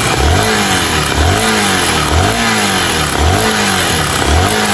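Honda Bros 160 single-cylinder engine revved in about five short throttle blips, roughly one a second, with a metal-on-metal noise from the top of the cylinder. The mechanic suspects a forgotten piston-pin circlip or something come loose inside, though he is not sure.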